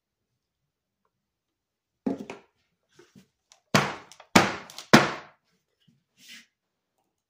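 Soap loaf mould full of fresh soap knocked down against the work surface: a softer knock about two seconds in, then three loud thumps about half a second apart.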